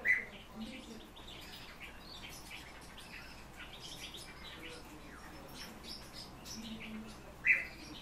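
Small cage birds chirping with many short high notes, two sharper, louder calls standing out: one at the very start and one near the end.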